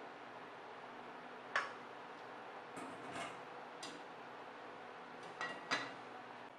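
Metal utensils clinking against a cooking pot: several sharp clinks at irregular intervals, a loud one about a second and a half in and a quick cluster near the end, over a steady hum.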